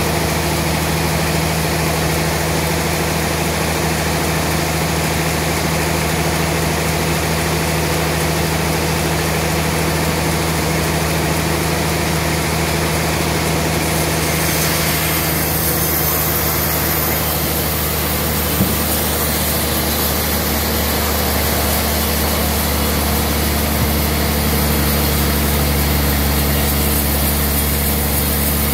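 Large band sawmill running through a trembesi log, a steady motor hum under a high hiss from the blade. The hiss grows brighter about halfway through, and there is one small click later on.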